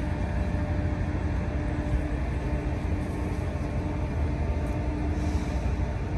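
A boat's engine running steadily under way: a low rumble with a constant hum above it.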